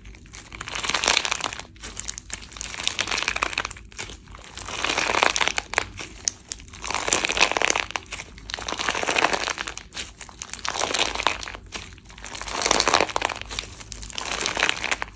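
Slime being squeezed and pressed by hand, crackling with many small pops in repeated strokes about every two seconds.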